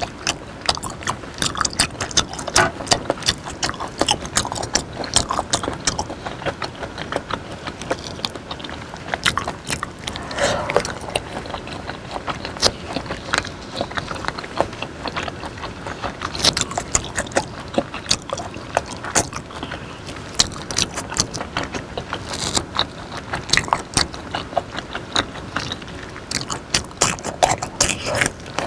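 Close-miked chewing and wet, smacking mouth sounds of raw beef in chili sauce, with crisp bites and crunching of fresh cucumber in the second half. Many quick, irregular clicks and crunches.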